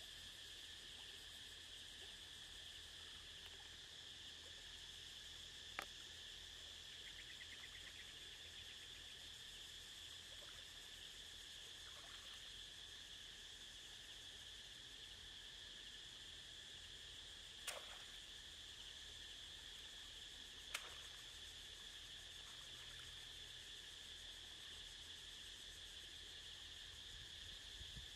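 Faint, steady chorus of insects at the riverbank, a continuous high drone, with three short sharp clicks: one about six seconds in and two close together near eighteen and twenty-one seconds.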